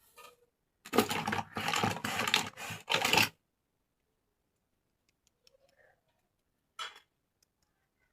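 Plastic toy packaging and parts being handled: a burst of rustling and scraping about a second in lasting some two seconds, then a few faint ticks and one sharp plastic click near the end.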